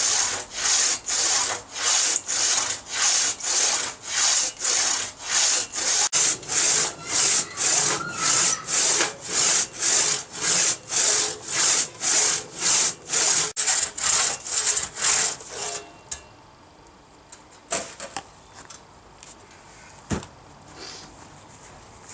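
Hand saw cutting through eucalyptus wood in steady, even strokes, about one and a half a second. The sawing stops about fifteen seconds in, and a few faint knocks follow.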